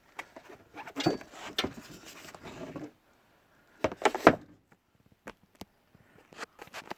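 Tools and cases being handled in a steel tool box drawer: a run of clicks and knocks, a louder clatter about four seconds in, then a few single clicks.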